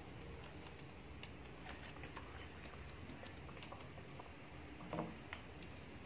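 Light, scattered taps and clicks of cockatiels' feet and beaks on a wooden tabletop, with a louder bump about five seconds in, over a low steady background hum.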